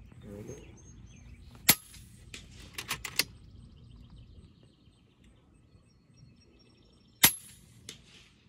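Two shots from an FX pre-charged pneumatic air rifle, each a sharp crack, about five and a half seconds apart. A few quieter clicks come about a second after the first shot.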